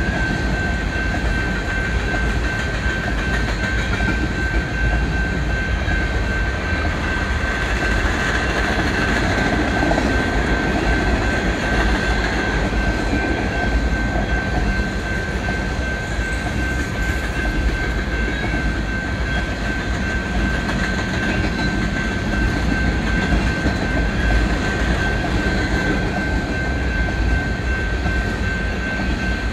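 Covered hopper cars of a BNSF grain train rolling past, a steady rumble and clatter of steel wheels on rail, with a thin high-pitched tone held throughout.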